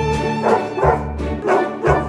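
Background music with a dog barking four times, in two quick pairs, over it.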